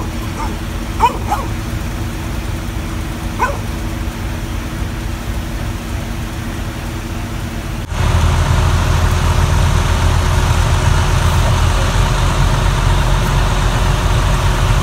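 Fire-engine motors running steadily, with a few short dog barks in the first few seconds. About eight seconds in, the running turns louder and deeper.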